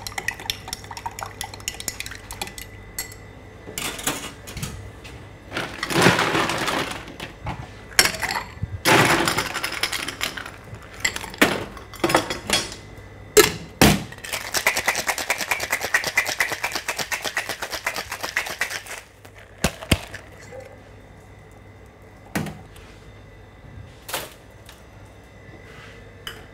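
Cocktail being mixed in a shaker: a bar spoon clinking as the ingredients are stirred, two loud rattling bursts, then the shaker shaken hard for about five seconds with a fast, even rattle, followed by a few scattered clinks and knocks.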